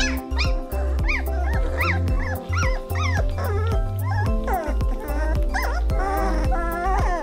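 19-day-old Weimaraner puppies squealing and yipping in many short rising-and-falling cries as they tussle, over background music with a steady beat.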